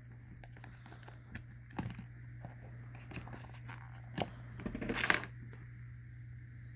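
Parts of an Israeli 4A1 gas mask being handled and pulled apart: scattered light plastic clicks and taps, with a couple of louder knocks about four and five seconds in, over a steady low hum.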